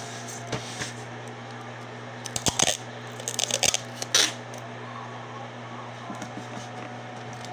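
Clear tape and paper being handled and pressed down, giving crinkly, crackling rustles in three short spells, about two and a half, three and a half and four seconds in, over a steady low hum.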